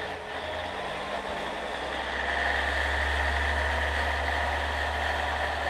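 Diesel railcar engines running: a steady low hum as one railcar idles at the platform and a second draws slowly in alongside, the sound swelling about two seconds in.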